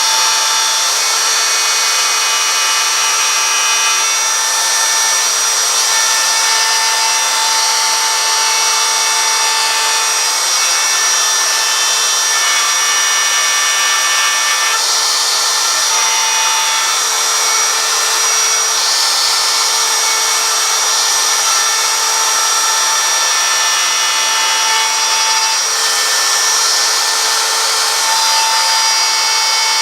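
Small high-speed router cutting into wood while carving a sign, a steady high-pitched whine whose tone shifts slightly every few seconds as it moves through the cut.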